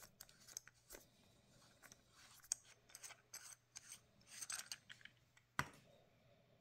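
Harbor Freight Quantum flashlight head being unscrewed by hand, its threads giving faint scraping clicks, then one sharp knock about five and a half seconds in as the head is set down on the wooden workbench.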